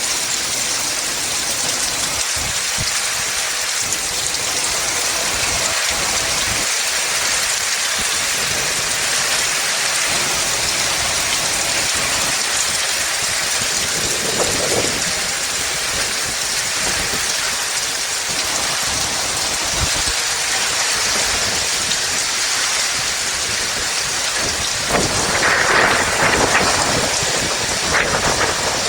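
Heavy rain falling steadily in a windy storm, with louder surges about halfway through and again near the end.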